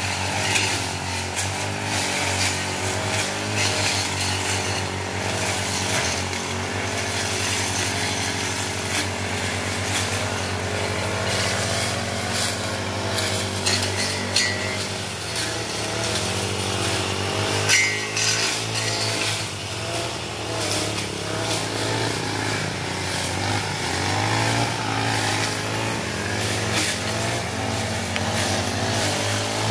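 Two petrol brush cutters running while cutting grass and weeds, their small engines droning steadily with the pitch rising and falling as the throttle and cutting load change.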